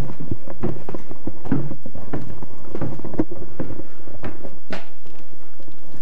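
Irregular footsteps and knocks on a hard floor strewn with debris.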